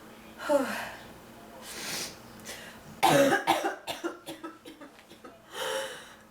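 A woman coughing from bronchitis: one cough about half a second in, a breath in, then a loud fit of quick coughs from about three seconds in, and another breath in near the end.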